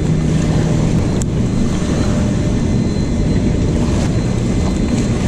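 Steady wind rumble on the camera microphone over choppy river water washing against the bank, with one sharp click about a second in.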